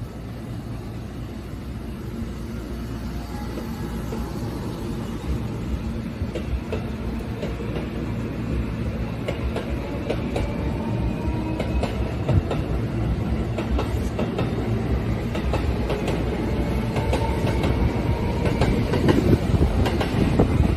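Hankyu 1000 series electric train pulling away from the platform, its motor whine rising in pitch as it gathers speed. The wheels clack over the rail joints more and more often as the cars pass close by, and the sound grows steadily louder.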